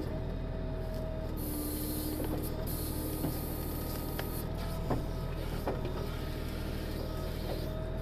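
Kioti DK6010 tractor's diesel engine running steadily under backhoe work, with a hydraulic whine that comes and goes as the boom and bucket move. A hiss lasts about three seconds, and a few sharp knocks come as the bucket pushes into the tree.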